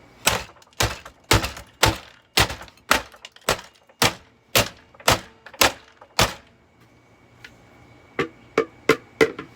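A hammer striking a vacuum cleaner's plastic housing: about a dozen steady blows roughly two a second, a pause of about two seconds, then five quicker blows near the end.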